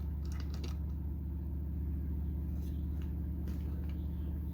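Steady low hum in the room, with a few faint clicks of plastic and metal tripod parts being handled, mostly in the first second.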